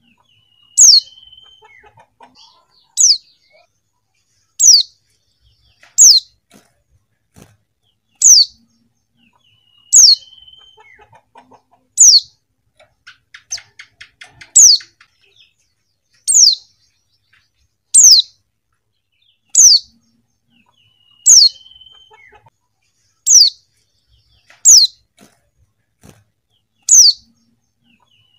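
Female white-eye (pleci) calling: a short, sharp, high note that drops in pitch, repeated about every two seconds, about fifteen times. A few calls are followed by a brief lower note.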